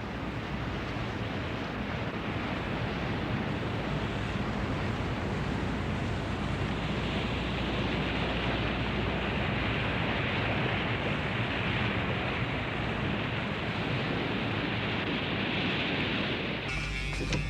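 Sea rushing and wind as a warship steams at speed, over a steady low engine hum. Near the end the sound cuts to a different steady mechanical hum.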